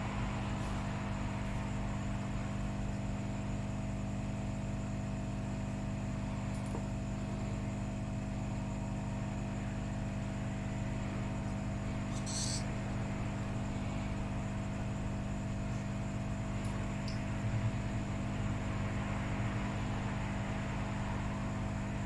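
Steady electrical hum of mains-powered bench equipment over a faint hiss, with one brief light click about halfway through.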